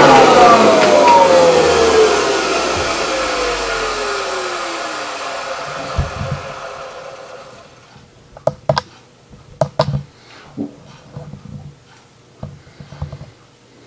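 Vacuum cleaner motor switched off, its whine falling steadily in pitch and fading away over about six seconds as it spins down. Then a few sharp clicks and knocks.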